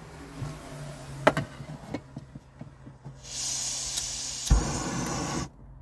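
Small screw-on backpacking gas stove being lit: a couple of sharp clicks, then a steady hiss of gas from the burner once the valve is opened, with a low pop about four and a half seconds in as the lighter ignites it.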